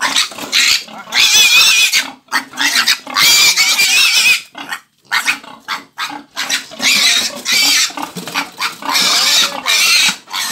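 Newly weaned piglet of about 29 days squealing in distress at being picked up and handled for weighing. It gives a run of loud, high squeals, each about a second long, with short breaks between them.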